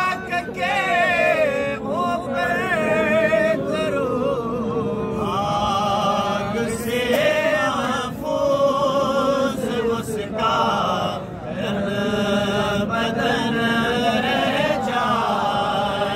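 A naat, a devotional poem praising the Prophet Muhammad, sung without instruments. The singing moves in long, gliding melodic phrases with short pauses between them.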